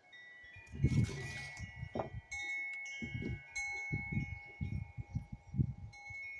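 Wind chimes ringing, several clear tones overlapping and dying away slowly, with repeated low rumbling underneath and a short rustle about a second in.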